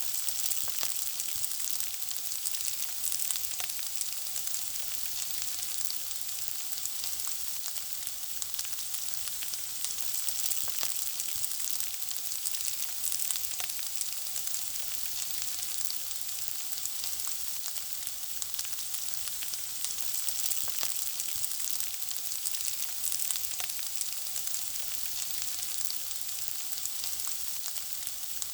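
Food frying, sizzling steadily: a high hiss with a dense scatter of small crackles and pops.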